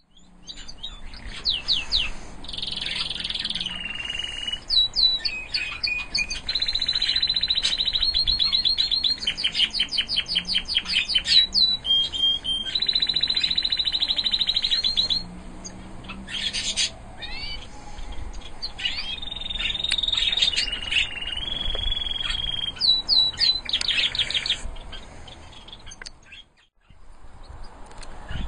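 Domestic canary singing: long rolling trills of rapid repeated notes alternating with held whistled notes, in phrases with short pauses, falling silent near the end.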